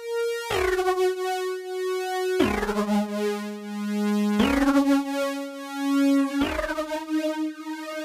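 u-he Tyrell N6 software synthesizer playing its 'Scratch'n Dust NF' preset: a line of held notes about two seconds apart. Each note starts bright and quickly closes down to a warmer sustained tone, and the line steps down to a low note about three seconds in and then climbs back up.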